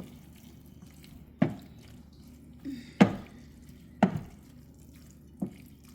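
About five sharp knocks and clicks, spaced roughly a second apart, from a pan of pasta and wilting spinach being worked with a utensil, over a faint steady hum.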